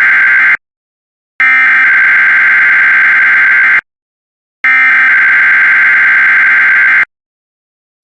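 Emergency Alert System SAME digital header: harsh two-tone data bursts sent three times, the tail of one ending about half a second in, then two more of about two and a half seconds each, with a second of silence between them. The header is the coded alert that sets off receivers, here for a Required Weekly Test.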